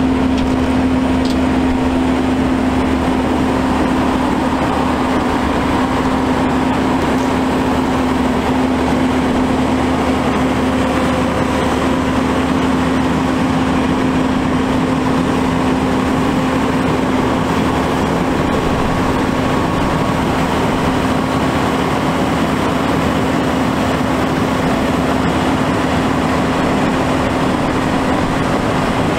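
Cummins ISM diesel engine of an Autocar Xpeditor grapple truck running steadily with a constant hum, driving the hydraulics of the Prentice 2124 grapple loader as its boom is worked.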